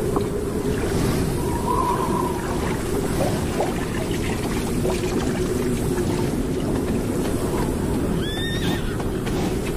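Namib Desert horses at a water trough: short wavering whinnies over a steady low rush of noise, with a brief rising call near the end.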